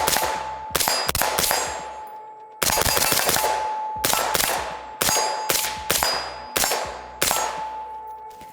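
Suppressed 5.56 AR-15 firing about ten single shots at an uneven pace, each crack followed by a fading tail. A steady metallic ring carries on between the shots.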